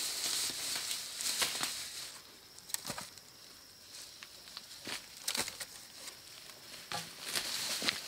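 Potatoes being handled and dropped into a woven bamboo basket: scattered soft knocks and rustles of soil and dry grass, several of them close together near the middle and end.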